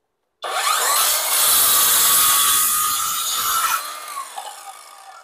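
MT Masaki MT-6800 cordless circular saw starting abruptly and cutting along a wooden board for about three seconds. It is then released and the blade winds down slowly, because the saw has no electric brake.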